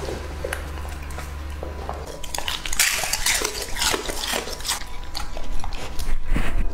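Labrador retriever chewing and crunching food, with its teeth and muzzle clicking against a ceramic plate. The crunching starts about two and a half seconds in as a dense run of sharp clicks and crackles, loudest just after it begins.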